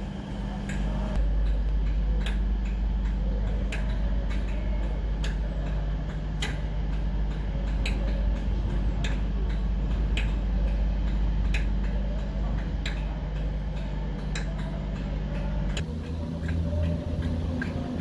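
Class 57 diesel locomotive's EMD two-stroke V12 engine idling with a steady low drone, with a sharp click repeating about every second and a quarter. About sixteen seconds in the engine note shifts higher.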